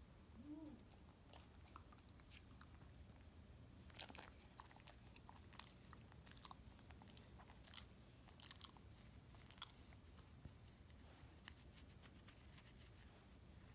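Irish terrier chewing and gnawing a wooden stick: faint, irregular crunching and cracking of wood, thickest through the middle. A brief squeak near the start.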